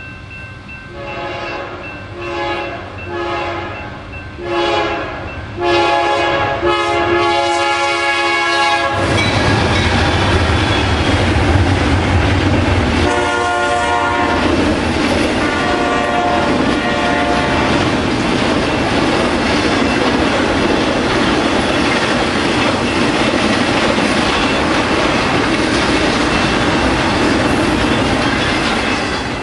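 Freight locomotives' Nathan K3LA air horn sounding a series of blasts for a grade crossing, the last one held about three seconds. The locomotives then pass close with a heavy engine rumble, the horn gives one more short blast, and a long intermodal train of double-stack containers and trailers follows with a steady rumble and clickety-clack of wheels on rail joints.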